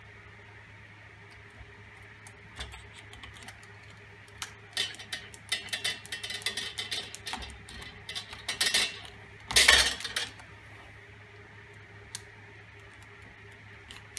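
A screwdriver being pushed and twisted through the plastic-faced top lid of a tank to punch holes: a run of scraping, crunching clicks starting about four seconds in, loudest near ten seconds, then stopping. A steady low hum runs underneath.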